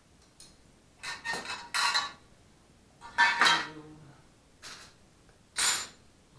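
Metal clattering and scraping of tools and the engine's sheet-metal cylinder heat shield being handled on a steel workbench top. It comes in a handful of short bursts: two about a second in, a loud one around three seconds in with a brief ring, and a sharp one near the end.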